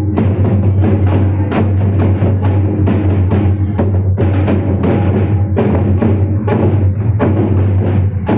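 Santali folk drums playing a fast, steady dance rhythm: a large drum beaten with two sticks together with strap-hung barrel drums, struck in quick, closely spaced strokes over a constant deep boom.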